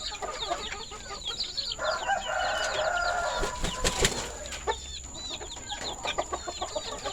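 A flock of kampung chickens calling, with many high, quick chirps throughout. About two seconds in, a rooster crows once, a drawn-out call of about two seconds.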